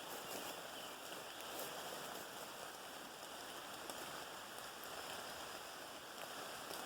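Steady rain falling: a faint, even hiss with a few scattered ticks of drops.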